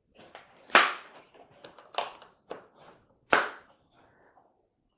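Metal hand tools from a mechanic's tool set clacking as they are handled and set down: three sharp clacks a little over a second apart, with lighter clicks between.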